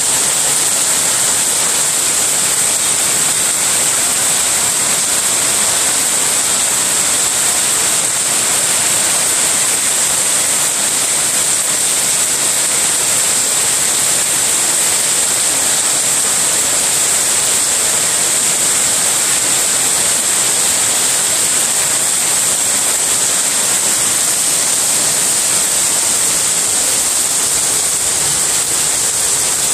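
Heavy rain pouring down onto tiles, leaves and a ceramic planter, with splashing: a loud, steady hiss that does not let up.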